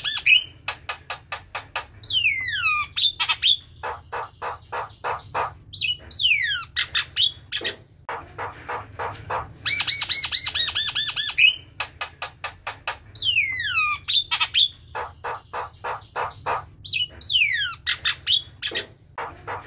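Javan myna singing energetically: runs of rapid clicks, steeply falling whistled slurs and harsh, buzzy notes, the same sequence of phrases coming round again about halfway through.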